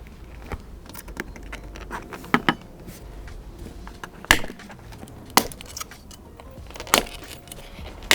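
Sharp plastic clicks and taps as a fragile trim strip is pried away from a car body and worked off its clips: about five louder clicks a second or more apart, with lighter ticks between.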